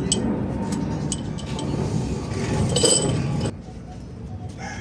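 Metal tools and engine parts clinking against each other during an engine teardown, with one sharper ringing clink about three seconds in.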